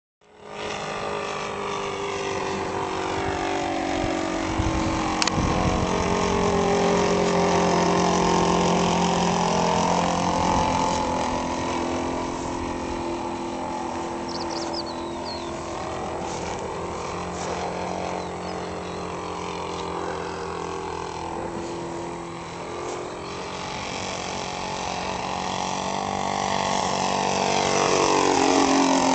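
Radio-controlled model glider-tug plane's engine running in flight. Its pitch rises and falls as the plane turns and passes, and drops sharply as it flies past close near the end.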